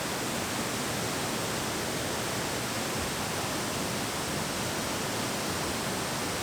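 Blackwater Falls, a large waterfall running high after very heavy rain: a steady, even rush of falling water.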